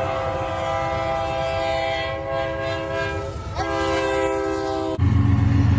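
Locomotive air horn sounding a long, steady chord of several notes, with a brief waver in pitch about three and a half seconds in. About five seconds in it cuts abruptly to a louder, lower steady sound.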